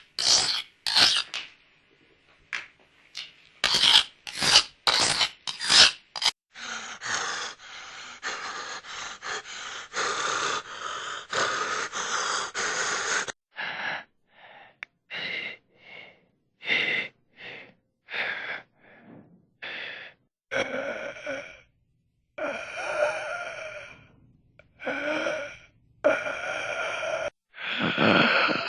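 Horror sound effects made with a human voice: a rapid series of short, sharp gasps and breaths, followed in the last several seconds by short groaning vocal sounds with a steady pitch.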